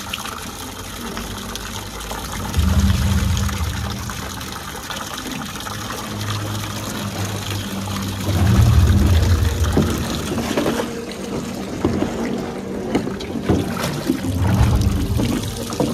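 A stream of water from a hose pouring and splashing into a metal tub where a lion stands and wades. Low, muffled rumbles come three times, about 3, 9 and 15 seconds in.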